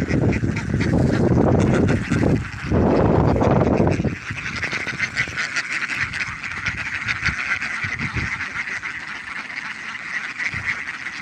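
A large flock of Indian Runner ducks quacking together in a dense, continuous chatter. For the first four seconds a loud low noise on the microphone largely covers it; after that the quacking stands out clearly.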